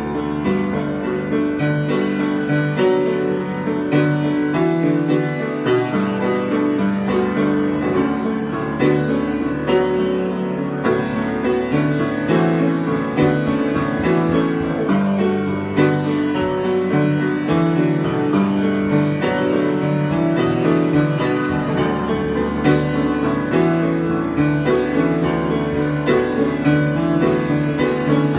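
Improvised piano music: a continuous flow of notes and chords, with no pauses.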